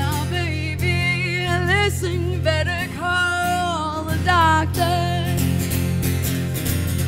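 A woman singing with a wavering vibrato over a strummed acoustic guitar. Her voice stops about five seconds in and the guitar carries on alone.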